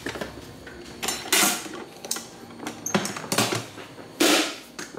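Steel military ammo can being handled: a few metallic clanks and scrapes of its lid and latch, the loudest near the end as the lid is pressed down shut.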